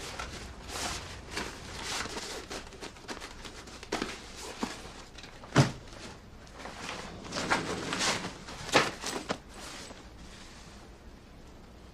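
Scattered knocks and clicks at an uneven pace, the sharpest one about five and a half seconds in, with a cluster of louder ones near the eight-second mark.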